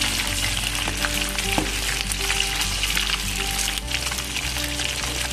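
Pre-braised chicken pieces sizzling steadily as they deep-fry in hot oil in a frying pan and are turned with metal tongs, a dense crackle of oil bubbling around the moist meat.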